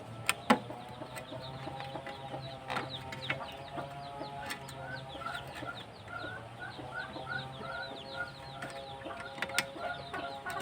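Chickens clucking, with a few sharp clicks of handling as the snail horn's wiring socket is plugged in; the loudest click comes about half a second in.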